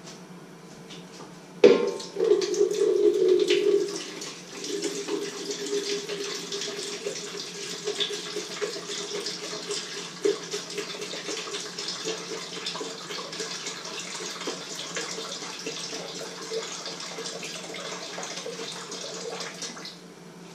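A liquid pouring from a carton into a plastic measuring jug. It starts with a sharp click, glugs loudly for the first couple of seconds, then runs steadily and stops abruptly near the end.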